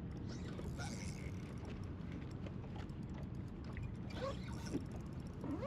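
Fishing reel being worked with faint mechanical clicking while a hooked fish is played on light line, over a steady low rumble of wind and water.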